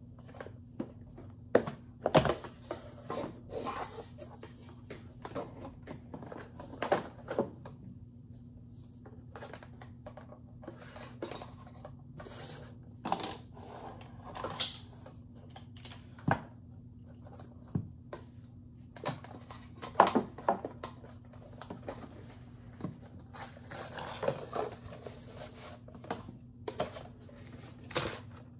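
Irregular clicks, taps and rustles of a power cable and an Echo Dot smart speaker being handled and set down on a desk. The loudest knocks come about two seconds in and about two-thirds of the way through. A faint steady low hum runs underneath.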